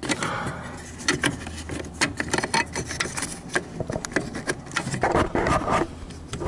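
Clear plastic protective shield being prised and popped off an electrical terminal bus: many small plastic clicks with rubbing and scraping as the cover is worked loose.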